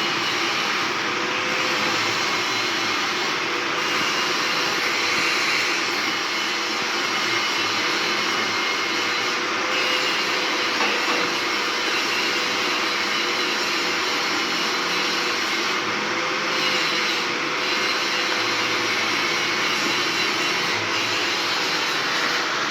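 Stick (shielded metal arc) welding arc burning continuously: an unbroken hissing noise with a faint steady tone underneath.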